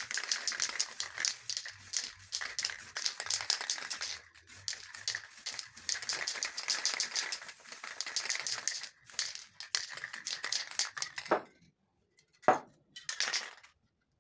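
Crumpled plastic crinkling and rustling in quick, dense bursts as it is dabbed and rubbed over wet spray paint to texture it. It stops about 11 s in and is followed by a single sharp knock, the loudest sound, and a brief scrape.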